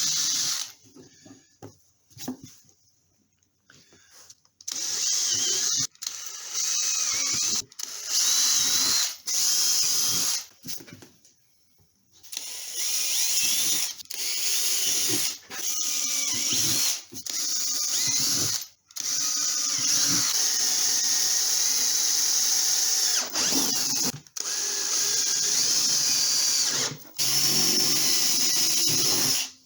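Power drill drilling a series of small holes, running in repeated bursts of a second or two with short pauses between them, and longer stretches of drilling in the second half.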